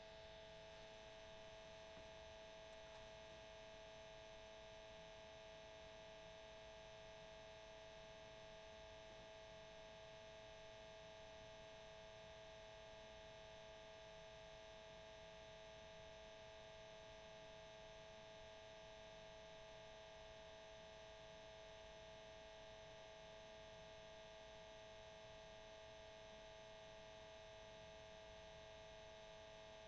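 Cassette tape motor running, a faint steady hum with a thin whine that does not change.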